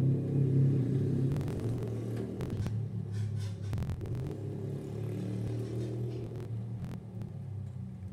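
Thunder rumbling, loudest at the start and slowly dying away over several seconds.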